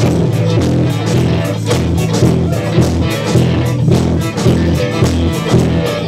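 Live band playing on stage: drum kit keeping a steady beat under electric guitars and keyboard, heard in the room through the PA.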